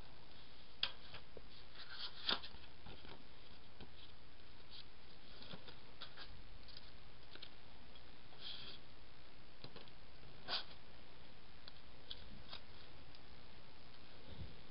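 Paper and sticker handling: soft rustles and small clicks as planner pages are lifted and stickers are peeled and pressed down by hand. A few sharper ticks stand out, about a second in, a quick double one a little after two seconds, and another past ten seconds.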